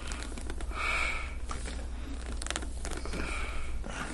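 Hands pressing and rubbing deep into the muscles of a person's upper back, making soft skin and cloth scraping with small scattered clicks. Two breathy exhales come about a second in and again a little after three seconds in.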